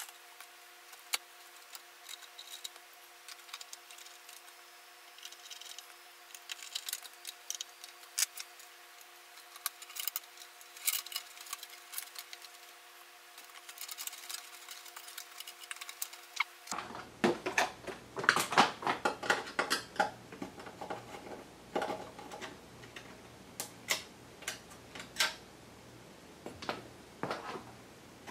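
Scattered metal clicks, taps and rattles of hand work on a steel rackmount computer case as a power supply is fitted: screwdriver, screws and cable connectors. The clicking gets busier and louder about halfway through.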